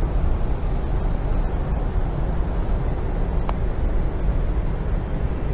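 Steady low rumbling background noise with no distinct events, and a faint click about three and a half seconds in.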